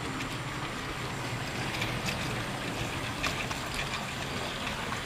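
Model train running along the track, heard from a camera riding on one of its wagons: a steady rolling rumble of wheels on rail with scattered small clicks.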